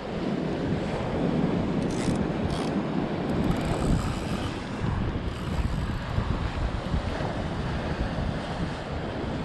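Wind buffeting the microphone over the wash of sea waves breaking against rocks.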